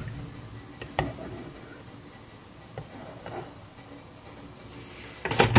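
Plastic spoon stirring coffee in a ceramic mug, with a sharp tap against the mug about a second in, a few faint clicks, then a louder cluster of knocks near the end as the spoon comes out.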